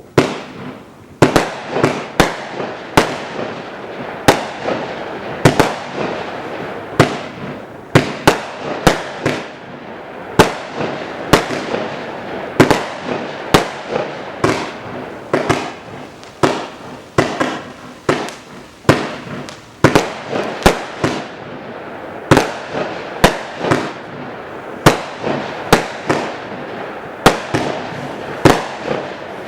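A multi-shot firework battery (cake) firing in rapid succession: sharp bangs about one to two a second over continuous crackling, starting suddenly out of silence.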